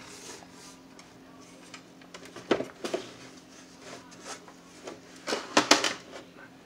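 Handling noise from a radio cabinet being turned over and shifted on a workbench: scattered knocks and rubs, a pair of knocks about two and a half seconds in and a louder cluster of knocks between five and six seconds, over a faint steady hum.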